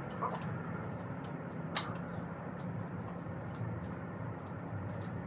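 Light scattered clicks of hand tools on engine parts, one sharper click about two seconds in, over a steady low hum.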